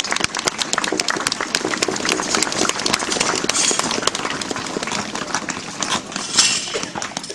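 Hooves of several horses clip-clopping on hard pavement, an irregular patter of sharp knocks.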